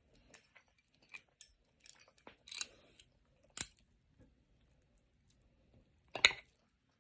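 Eating utensils clicking and scraping in a bowl as an egg is mixed into rice: scattered light taps, with sharper clinks about three and a half seconds in and again near the end.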